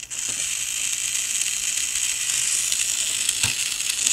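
Small battery-powered electric motor and plastic gearbox of a Thomas Trackmaster toy engine running on a bench test, a steady high whir: the resoldered wiring works and the gearbox and motor are sound. A single click about three and a half seconds in.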